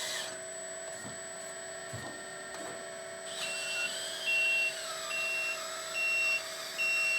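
Steady whine of the RC hydraulic excavator's electric pump motor, with a few light knocks in the first seconds. About a third of the way in, a high electronic beep starts repeating about once every 0.8 seconds, like a reversing alarm.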